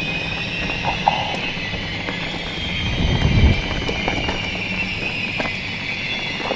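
Mountain bike running down a rocky singletrack: a steady rush of tyre and riding noise with many sharp clicks and rattles from stones and the bike's chain and frame, and a heavier low thump about three seconds in.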